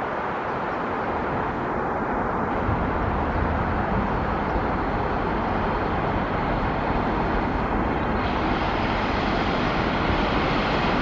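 ET2M electric multiple unit running in towards a platform: a steady rushing rumble that grows slightly louder and brighter as the train nears.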